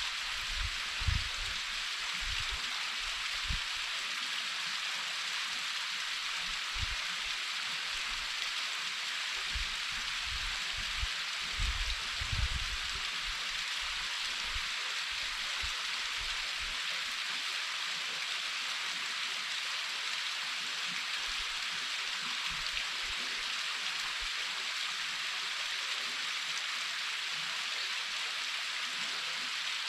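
Waterfall pouring, a dense, steady hiss of falling water. A few short low thumps come in the first few seconds and again around the middle.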